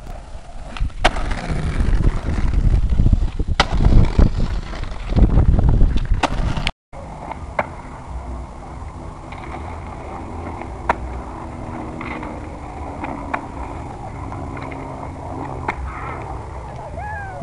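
Skateboard wheels rolling loudly over pavement with sharp clacks of the board hitting the ground. After a cut about seven seconds in, quieter skateboarding is heard from a distance, with a few scattered clacks.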